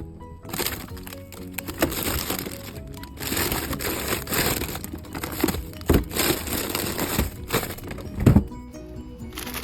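Background music, with rustling and crinkling of packaging and sharp knocks about six seconds in and again near the end, as groceries are handled.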